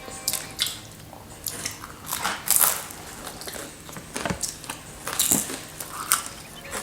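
Pizza being bitten and chewed, with irregular soft crunches of crust and mouth sounds.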